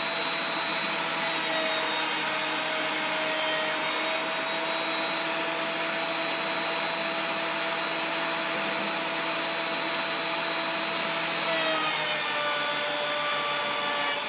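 Laguna PX12 benchtop thickness planer with a segmented carbide-insert cutterhead, running steady and loud while planing a board. It gets only a little louder under the cut, which the owner puts down to fewer cuts per revolution. About twelve seconds in its whine dips slightly and shifts.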